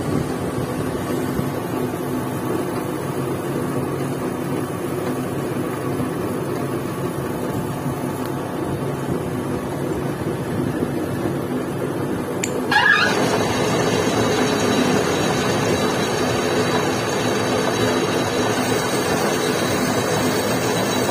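Metal lathe running with a steady hum. About two-thirds of the way through there is a short squeal and the noise steps up louder as the spindle starts turning the clamped motorcycle cylinder.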